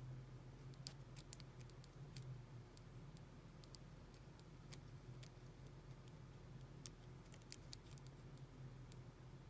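Faint, irregular metallic clicks and ticks of a lock pick working the pin stack of an American 700 padlock under tension, a few a second, with a sharper click about a second in and again near the middle and later. A low steady hum sits underneath.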